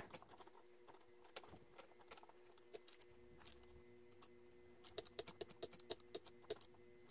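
Faint metallic clicking of a 3/8 inch socket wrench and an Allen wrench tightening a nut by hand. Scattered clicks give way to short runs of quick clicks from about five seconds in.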